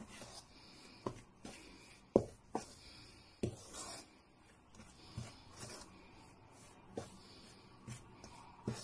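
A spoon scraping and knocking against a stainless steel bowl while stirring cooked lentils into flour, with irregular faint clinks about once a second over a soft rubbing sound.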